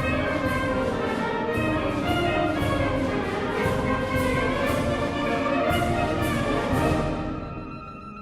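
A wind band playing a loud full-band passage with brass to the fore and percussion strokes about twice a second; near the end the percussion stops and the music drops to a much softer passage.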